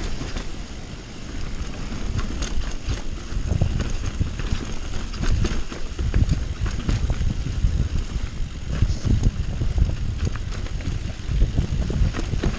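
Mountain bike descending a rough dirt and rock trail: a continuous low rumble of tyres and wind on the microphone, with frequent sharp clicks and rattles from the bike over bumps.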